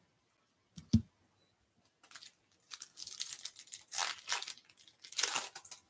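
A single thump about a second in, then a Topps Holiday baseball card pack's foil wrapper crinkling and tearing open in several rips over the last four seconds.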